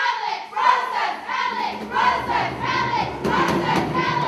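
A group of voices sings or calls out together in short repeated phrases, about two a second. Sharp clicks or claps join in about three seconds in.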